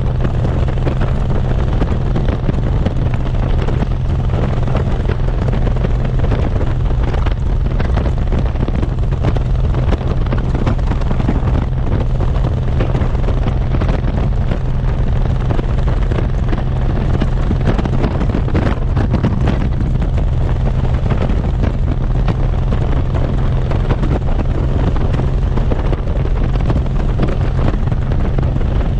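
Cruiser motorcycle engine running steadily at cruising speed, a constant low hum, with wind rushing and buffeting across the microphone throughout.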